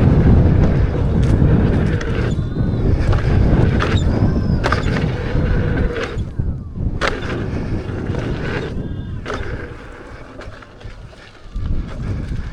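Wind buffeting the microphone while riding an electric unicycle fast over a rough dirt trail, with scattered knocks and rattles from the wheel over the ground. The rush is heaviest at first and eases off about ten seconds in as the ride slows.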